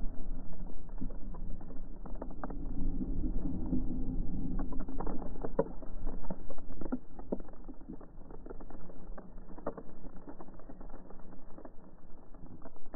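A person sliding on his backside down a snowy trail: a steady scraping hiss of clothing over snow, broken by many small crunches and clicks, easing off somewhat in the second half.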